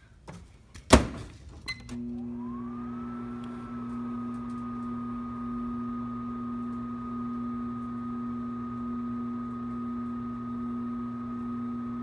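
A loud thunk about a second in and a small click, then a microwave oven starts running: a steady electrical hum with a fan whine that rises in pitch and levels off.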